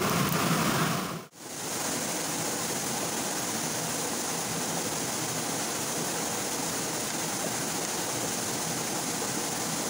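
Steady rushing of flowing stream water. The sound drops out briefly about a second in, then carries on evenly.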